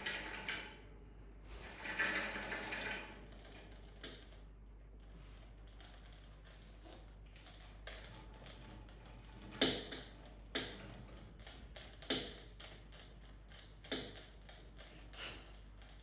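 A brief rustling in the first few seconds, then scattered sharp taps and clicks, about seven of them one to two seconds apart, the loudest about ten seconds in.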